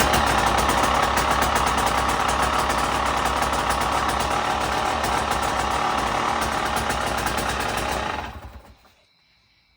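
2024 Husqvarna TE 300's two-stroke single-cylinder engine idling steadily with a rapid even firing beat, then shut off about eight seconds in.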